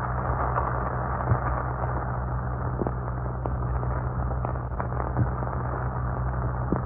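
Background noise of an old 1944 broadcast recording: a steady hiss over a low hum, with scattered crackles and pops roughly once a second.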